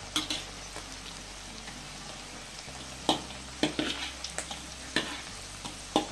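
Corn and shrimp fritters deep-frying in hot oil in a wok: a steady sizzle broken by several sharp clicks and pops.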